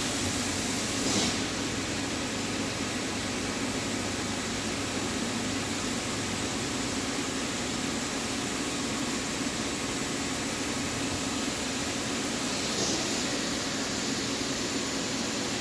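Wire EDM machine running during a cut: a steady hiss with a low steady hum, and a couple of faint brief clicks.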